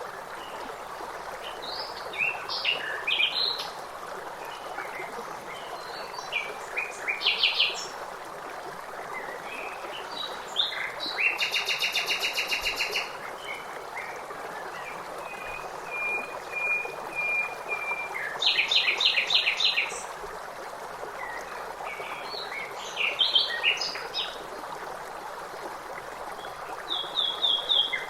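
Songbirds chirping and singing in short phrases every few seconds, one of them a fast, even trill, over the steady rush of flowing water.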